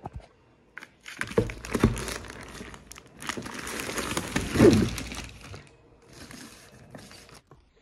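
Packaging crinkling and rustling in several bursts as a school kit of books is unwrapped and handled, loudest a little past halfway.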